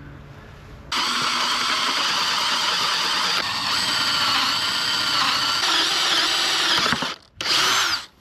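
Power drill running for about six seconds with a steady whine, stopping briefly, then a short second run.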